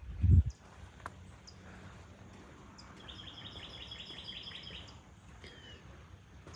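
Songbird calling outdoors: a few single high chirps, then a quick trill of about ten chirps lasting nearly two seconds, followed by a short falling note. A brief low thump, the loudest sound, comes right at the start, typical of the microphone being bumped or buffeted while walking.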